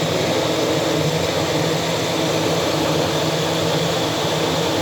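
A steady electric motor running, a constant hum under a broad whooshing hiss with no change in speed.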